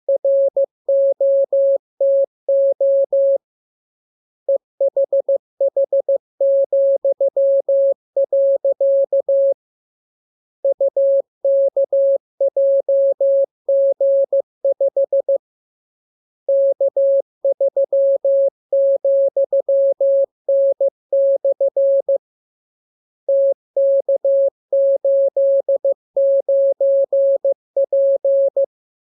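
Morse code (CW) sent as a single steady tone keyed on and off in dots and dashes, in groups of characters with pauses of about a second between the groups.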